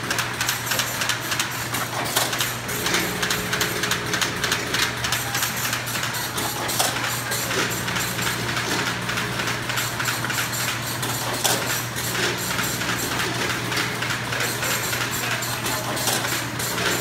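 Blueberry packing line running: a steady machine hum with a constant, irregular clatter of small clicks and rattles from the conveyors and packing machines.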